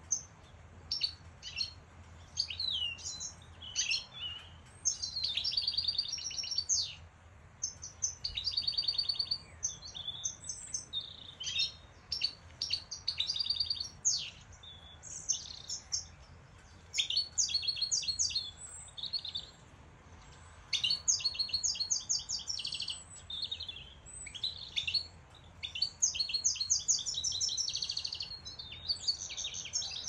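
European goldfinches singing: bursts of quick, high twittering chirps and trills, phrase after phrase with short pauses between.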